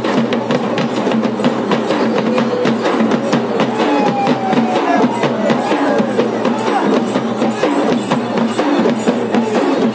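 Festival drums beating a loud, steady, rapid rhythm.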